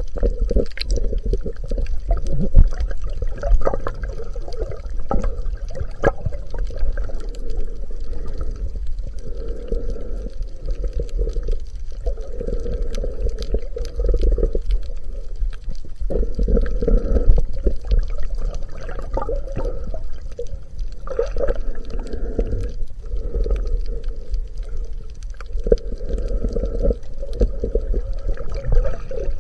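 Muffled underwater water noise heard through a chest-mounted camera's waterproof housing while snorkeling: a low rumble with swells that come and go every few seconds, and scattered sharp clicks.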